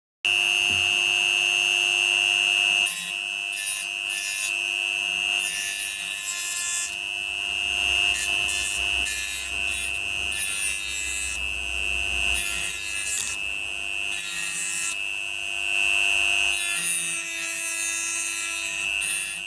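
HILDA JD3321C rotary tool spinning at speed with a steady high whine, free-running for about three seconds. Its grinding-stone bit is then pressed again and again against the metal blade of garden scissors, giving bursts of hissing, scraping grinding over the motor whine.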